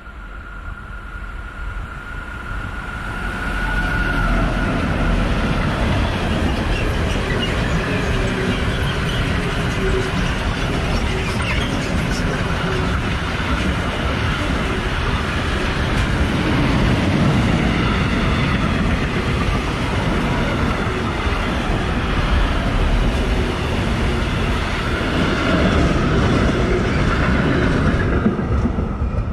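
A train passing close by on the main line: the rail and wheel noise builds over the first few seconds, runs steadily for more than twenty seconds, and falls away near the end.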